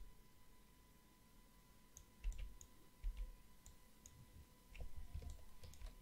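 Faint, scattered clicks of a computer mouse and keyboard, starting about two seconds in and coming more often near the end, over a faint steady tone.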